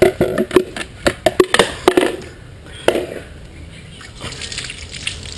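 Water splashing as a cat is wetted down by hand under a tap, with a quick run of sharp splashes in the first two seconds, then quieter.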